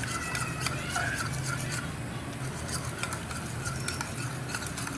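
A spoon stirring sugar into water in a ceramic bowl, with a quick run of small clinks and scrapes against the bowl as the sugar is dissolved into a syrup.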